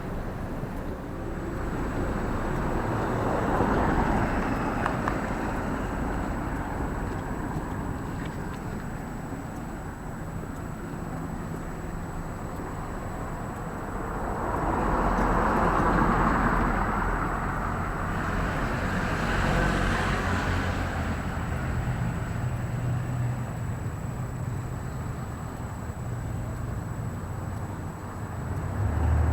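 Street traffic: cars passing, swelling and fading several times over a steady low hum of engines.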